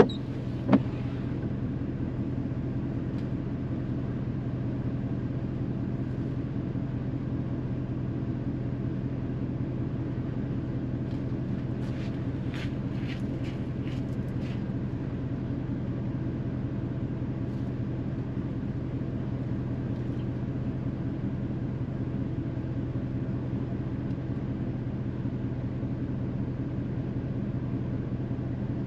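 Vehicle engine idling with a steady, even low hum. A single sharp click comes under a second in, and a few faint ticks come about halfway through.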